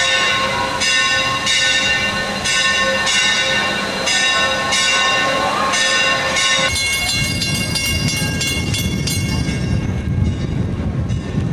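Steam locomotive's bell ringing steadily, one stroke about every 0.7 s as the 4-6-0 engine moves slowly along the track. About 6.5 seconds in, the ringing stops abruptly and a low rumble takes over.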